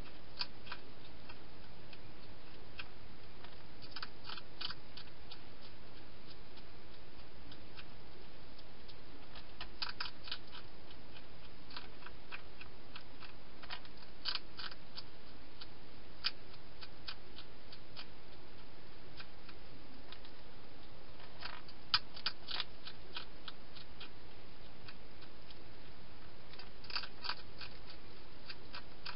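Wild hedgehog chewing food: short bursts of crisp crunching clicks every few seconds, over a steady hiss.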